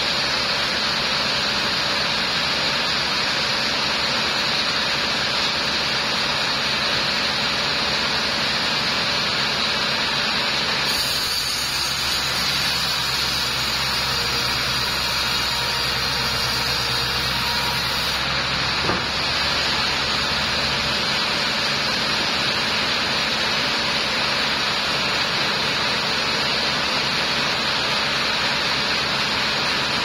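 Sawmill band saw running and ripping a teak log into planks: a steady hiss. Its tone shifts for several seconds around the middle, and a single knock sounds a little after.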